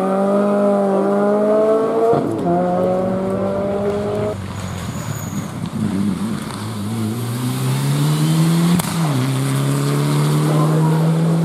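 Rally car engines under hard acceleration. An engine note climbs, breaks for a quick upshift about two seconds in, climbs again and fades away after about four seconds. From about six seconds an engine note builds again, shifts up once more near nine seconds and holds steady.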